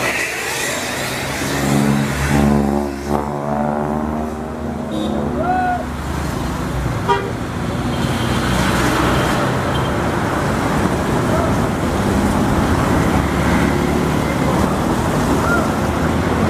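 Tour coach's engine running as it pulls out onto the road amid passing traffic, with a horn sounding for about a second and a half about two seconds in.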